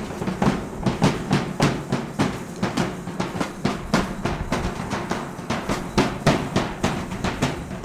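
Rhythmic percussion for a Chichimeca street dance: sharp drum strikes, about four or five a second.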